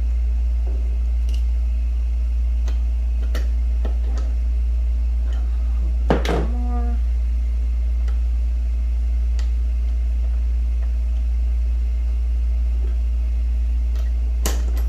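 Steady low hum under scattered clicks and knocks of metal mount parts being handled, with a louder clink that rings briefly about six seconds in and another sharp knock near the end.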